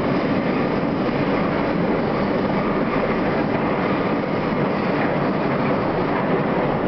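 R32 subway train running at speed through a tunnel: steady wheel-on-rail and running noise, even in level throughout.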